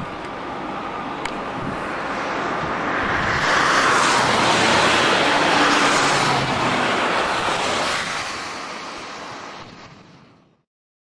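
A road vehicle passing: a rushing noise that swells to its loudest about four to seven seconds in, then fades away and cuts off shortly before the end.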